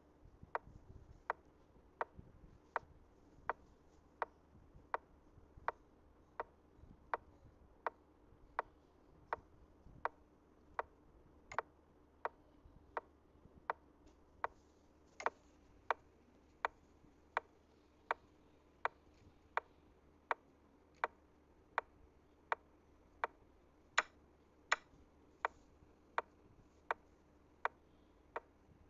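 Chess-app piece-move sound effect: a sharp click about three times every two seconds as the game's moves are played through in quick, even succession, with a few clicks louder than the rest.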